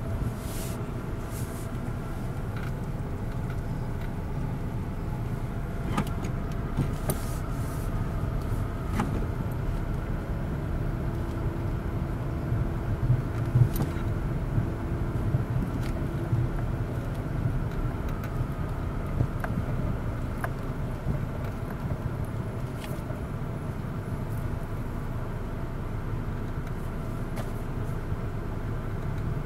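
Steady low rumble of a car's engine and road noise heard from inside the cabin, with a few light clicks.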